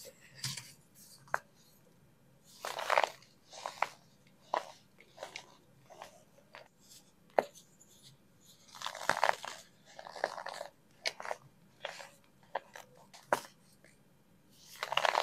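Pressed baking soda pucks being crushed by hand: crisp crunches in irregular bursts, with short sharp snaps in between.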